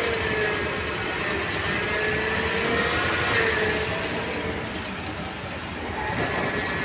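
Toyota Land Cruiser engine idling while the steering is held at full left lock, with a faint tone that wavers slowly in pitch. There is no loud whine from the power steering: the replaced vane pump is running quietly, its noise cured.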